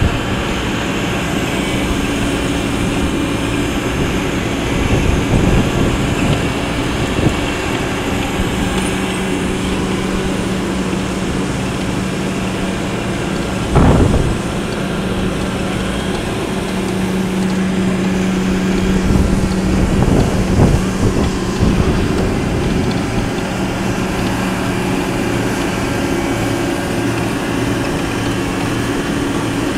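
Asphalt paving machinery running steadily: the paver's diesel engine and hydraulics hum, with some clattering and one loud knock about halfway through.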